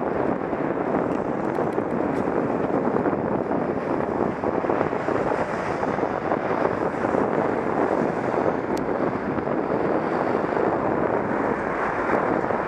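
Wind rushing over the microphone of a cyclist's head-mounted camera while riding, a steady roar mixed with road and traffic noise.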